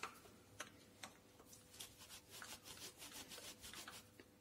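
Near silence with faint scattered ticks and light rubbing: a small screw being turned into a lathe's housing by hand.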